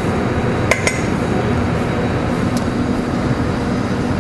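Steady hum and hiss of a commercial kitchen's ventilation, with two quick metallic clinks of cookware about a second in and a faint tick a little later.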